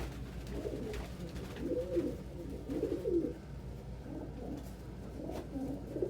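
Several domestic pigeons cooing, their coos overlapping one after another, over a steady low hum.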